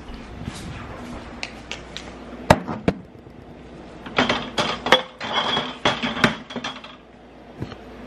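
Knocks and clatter of the camera being handled and set down on a kitchen countertop: two sharp knocks, then a few seconds of rapid clattering.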